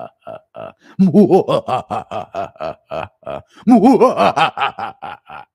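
A man laughing hard into a close microphone: quick repeated voiced bursts, with the loudest runs about a second in and again near four seconds in.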